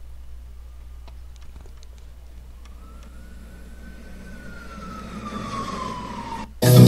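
A single electronic, whistle-like tone swoops up and then slides slowly down over a faint low hum, growing louder with rising hiss. It cuts off suddenly, and a pop song with electric guitar and bass starts loudly near the end.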